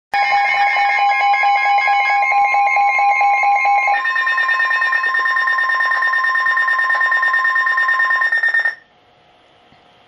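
Several NOAA weather radio receivers sounding their alert alarms together for a severe thunderstorm warning: a loud chorus of rapidly pulsing electronic beeps over a steady warning tone. The mix of pitches changes about four seconds in, and the alarms cut off shortly before the end.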